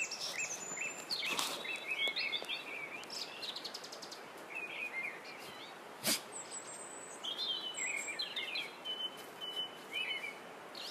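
Small songbirds chirping and trilling in short phrases over a steady outdoor hiss of wind. A single sharp click comes about six seconds in.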